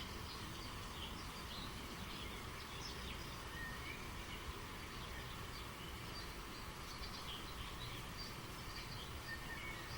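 Steady rush of flowing river water with songbirds chirping over it in many short notes and a few brief whistles.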